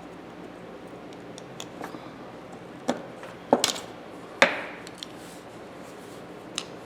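Sharp metal clicks and knocks of a hand tool working at a ratchet's spring-loaded dust cover, trying to pry it off. A few scattered taps, the loudest about four and a half seconds in, ringing briefly.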